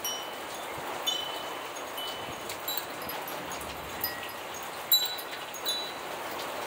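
Steady rain falling, with a wind chime ringing a few high notes now and then; the sharpest strike comes about five seconds in.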